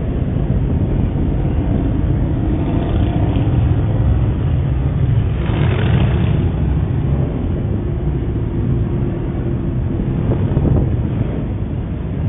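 Motorcycle engines of a procession riding through a junction: a continuous low rumble with louder swells as bikes pass, about five and a half seconds in and again near eleven seconds, heard muffled through a security camera's microphone.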